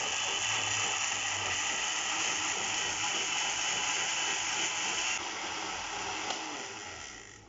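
Countertop electric blender running, liquefying chopped cucumber and mint with water into juice. A steady motor whine that gets quieter about five seconds in and winds down near the end.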